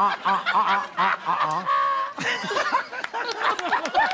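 A man imitating a tuba with his voice into a microphone: a string of short buzzing honks, about four or five a second, ending on one held note. About two seconds in, laughter breaks out.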